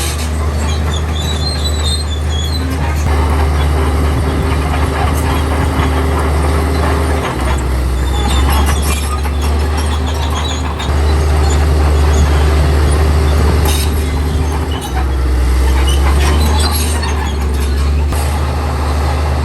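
Komatsu D65E bulldozer's diesel engine running under shifting load, its drone dipping and surging every few seconds, with scattered metallic clanks and squeals from the tracks and stone.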